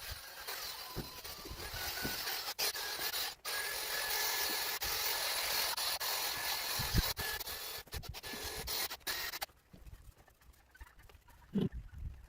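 Wire brush scrubbing the engine block, heard as a steady scratchy hiss with a faint whine, broken by abrupt cuts from the sped-up footage. It stops about nine and a half seconds in, leaving a few scattered knocks.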